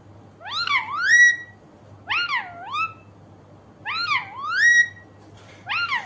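Pet rose-ringed parakeet (Indian ringneck) calling four times, each call sweeping up in pitch, dipping and rising again, with a pause of about a second between calls.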